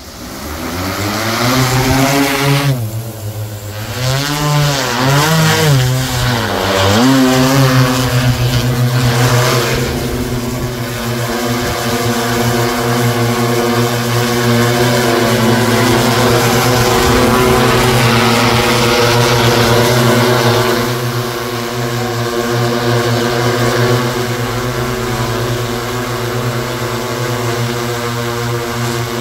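Six-rotor agricultural spraying drone's propellers whirring. The pitch wavers up and down for roughly the first eight seconds as it takes off, then settles into a steady hover.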